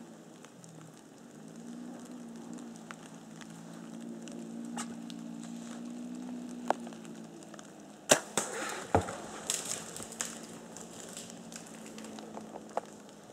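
A compound bow shot at a black bear: a sharp crack of the release and arrow strike about eight seconds in, then the bears crashing off through brush and dead wood for about two seconds, with a heavy thump near the middle. A low wavering hum runs under the first part.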